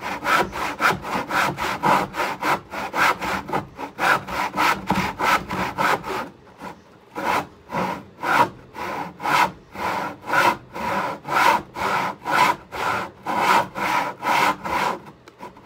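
Hand saw cutting a poplar board, in quick, even back-and-forth strokes, with a brief pause about six seconds in before the strokes resume.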